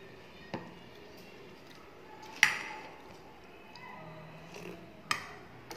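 Tableware clinks while dal is sipped from a china bowl: one loud, ringing clink about halfway through, as the stainless-steel bowl is set down on the ceramic plate, with a few lighter clicks and soft sipping.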